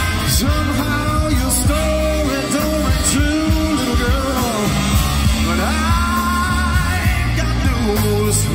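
Live horn band playing a rock-and-soul number: a lead vocalist sings over keyboards, bass guitar, drums and saxophones, with a heavy bass line.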